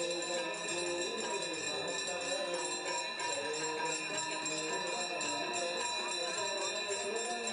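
Ganga aarti: bells ringing continuously while a devotional aarti song is sung, its melody rising and falling over the steady ringing.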